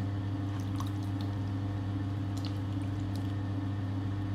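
Electric potter's wheel motor humming steadily, with faint wet squishes and drips from hands sliding on the spinning, water-slicked stoneware clay as the cylinder walls are slowly pulled up.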